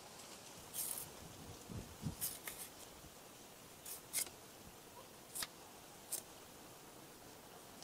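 Knife shaving the thick green peel off unripe bananas: about seven quiet, short scraping strokes at irregular intervals, with a couple of soft low knocks about two seconds in.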